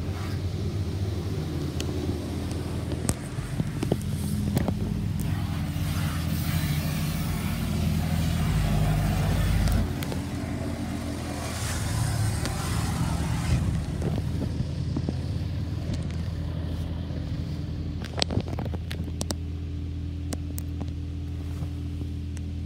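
High-pressure rinse jets of a touchless WashWorld Profile MAX car wash spraying the car, heard from inside the cabin over a steady low hum. The spray is heaviest about a third of the way in and fades off after about 14 seconds, leaving the hum and a few sharp ticks.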